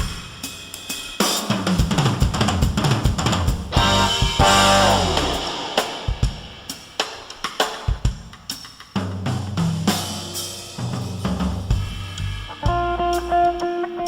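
Background music: a band track with a full drum kit, snare, bass drum and cymbals, settling into held guitar notes near the end.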